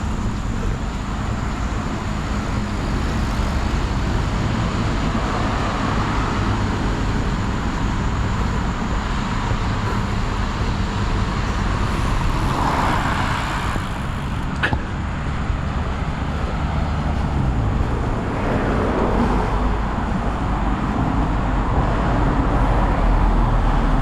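Steady road traffic from a busy road, with several vehicles swelling up and passing by, and one sharp click about fifteen seconds in.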